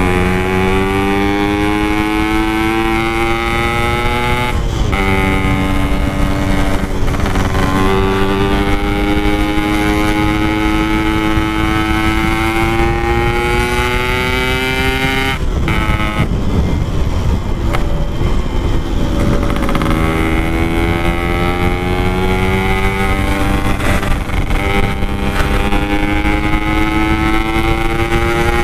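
Yamaha RX-King two-stroke motorcycle engine under way on an aftermarket Packing Power exhaust. Its pitch climbs slowly in each gear and drops at shifts about five and fifteen seconds in; it runs rougher for a few seconds before climbing again, over low wind rush.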